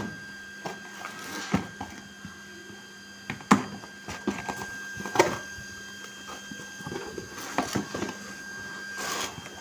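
Cardboard shipping box being opened by hand: flaps folded back and handled, with scattered knocks and rustling of cardboard and paper, the sharpest knocks about three and a half and five seconds in.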